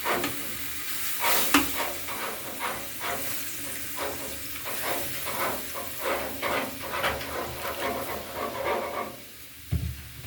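A spatula scraping and stirring a vegetable curry in a hot pan, over steady sizzling. There is a short low thump near the end.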